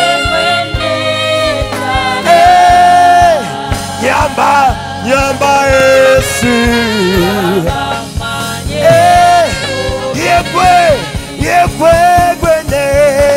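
Live gospel praise and worship music: a male worship leader sings into a microphone, holding long notes with vibrato, with backing singers and band accompaniment under a beat of drum strokes.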